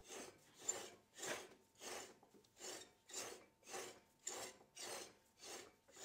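Hand sprayer squirting kerosene onto the gears of a lathe gearbox to flush out the old oil: faint, short sprays repeated at about two a second.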